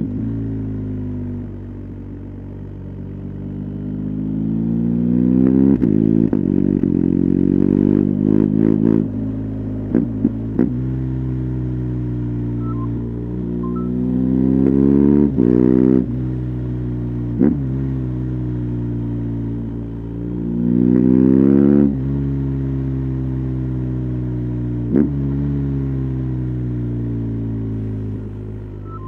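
2020 BMW R 1250 GS's boxer-twin engine, heard from the rider's seat through an SC Project titanium slip-on exhaust with its dB-killer fitted. It revs up through the gears and falls back again several times, with short sharp cracks at several of the gear changes.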